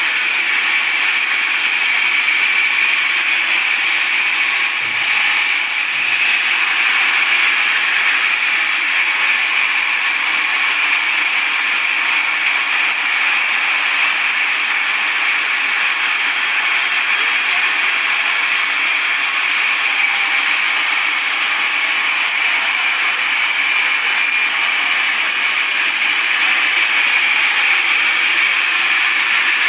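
Steady, unbroken hissing noise, even throughout, with no rhythm and no low rumble.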